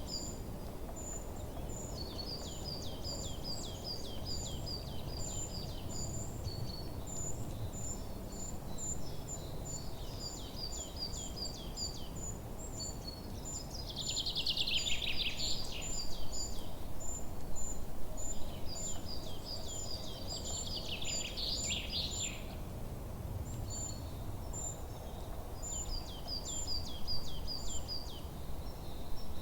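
Forest birdsong: continual rows of short, quickly repeated high chirps from several birds. Twice, at about 14 s and 21 s, a louder trill sweeps downward in pitch. A low, steady rumble runs underneath.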